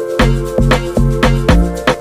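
Background music with a quick steady beat, about four hits a second, over deep bass notes.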